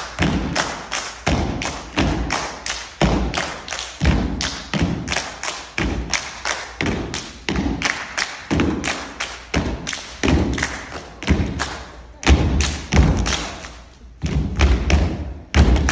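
A group of dancers stomping in unison in a step routine: a quick, steady rhythm of heavy thuds on the stage floor.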